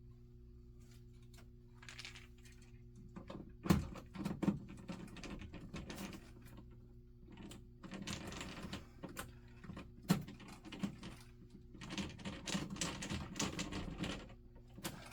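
Hands working on wiring: irregular small clicks, taps and rustles of wires and small parts being handled, busier in the second half. A steady low electrical hum runs underneath.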